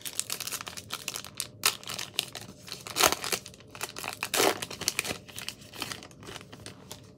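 Crinkly wrapper of a 2020 Topps Heritage Minor League baseball card pack being torn open and peeled back by hand: a run of irregular crackles, loudest about three seconds in and again a second and a half later.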